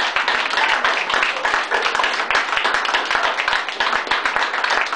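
A room of people clapping and applauding, a dense patter of many hands, with a few voices mixed in.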